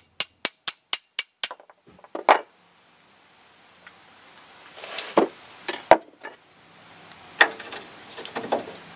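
Metal hand tools (wrenches and sockets) clinking and clanking on the idler arm and steering linkage as they are fitted to its nuts. About seven quick, sharp metallic clicks, roughly four a second, come at the start, then a few scattered clanks.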